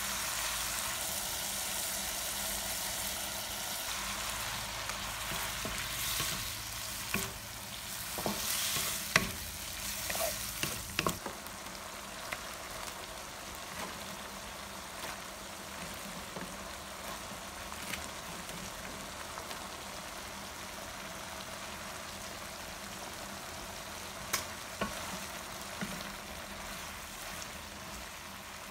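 Squid and shrimp sizzling in a hot pan with a steady hiss as they are stir-fried, with a wooden spatula scraping and knocking against the pan, most busily from about six to eleven seconds in and again briefly near the end.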